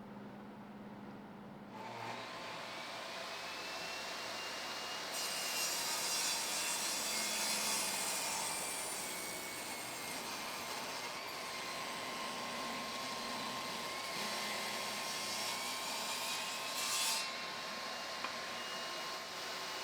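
A saw cutting wood in one steady, continuous run that starts about two seconds in.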